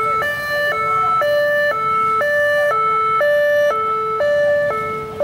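Ambulance's two-tone hi-lo siren, loud and close, switching between a higher and a lower note every half second.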